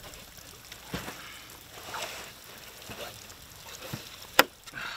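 Fillet knife slicing and scraping along a plastic cutting board as the skin is cut off a snowy grouper fillet, in faint scattered ticks and wet scrapes, with one sharp knock near the end.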